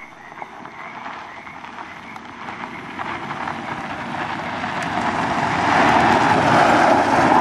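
A car driving toward the listener, its rushing engine and tyre noise growing steadily louder as it comes closer.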